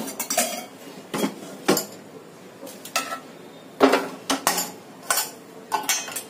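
A steel spoon and stainless steel kitchen bowls and vessels clinking and knocking against each other in scattered, irregular strokes, the loudest about four seconds in.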